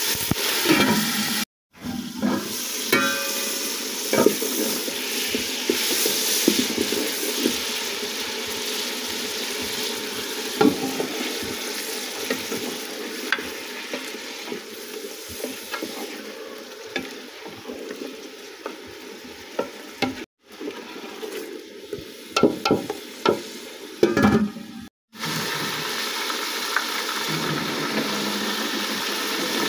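Chicken pieces sizzling and frying with onions in an aluminium pot, stirred with a wooden spoon that knocks and scrapes against the pot now and then. In the first second or so water is poured into the pot.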